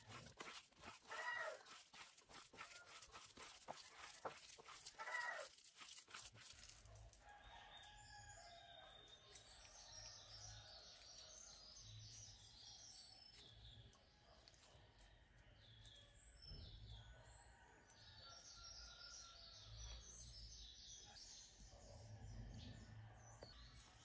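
Hands squishing and kneading a raw ground-pork meatball mixture in a bowl: a dense run of soft wet squelches that stops about six seconds in. After that only faint background is left, with scattered bird chirps and a low hum.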